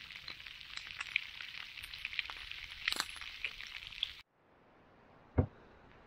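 Slices of Spam sizzling and spitting in a frying pan over a campfire, with many sharp crackling pops. The sound cuts off suddenly about four seconds in, leaving a faint hiss and then a single loud thump near the end.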